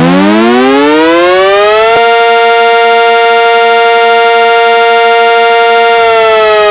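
Tornado warning siren winding up, holding a steady wail for about four seconds, then starting to wind down near the end.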